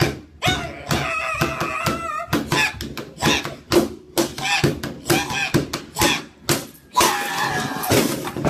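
A man shouting excitedly while slapping and banging his hands on a table, sharp knocks coming again and again between his yells.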